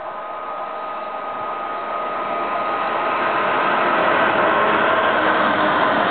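Class 66 diesel-electric freight locomotive, with its two-stroke V12 engine, growing steadily louder over about four seconds as it approaches and passes. After that comes the steady running noise of its long train of aggregate hopper wagons rolling over the rails.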